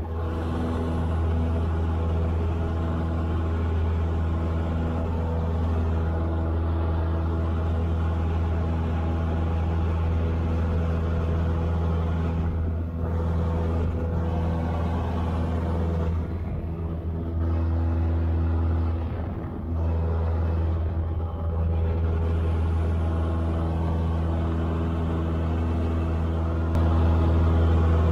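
Cessna 172's piston engine and propeller droning steadily, heard inside the cockpit, with a few brief dips midway and a step up in loudness a little before the end.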